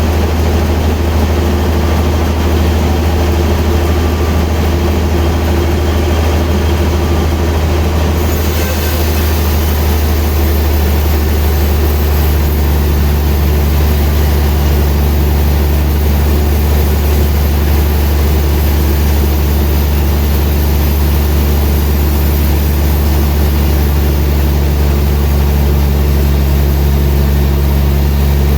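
Sawmill machinery running steadily with a heavy low hum; the sound shifts about eight seconds in and a further low tone joins a few seconds later.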